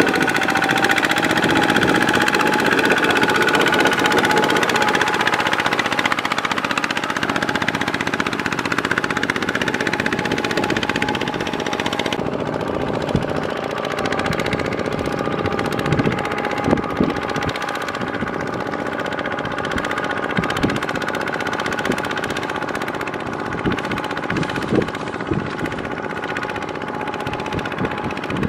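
Two-wheel walking tractor's single-cylinder diesel engine running steadily under load while its cage wheels churn through a flooded rice paddy, with water splashing in the first half. Sharp knocks stand out now and then in the second half.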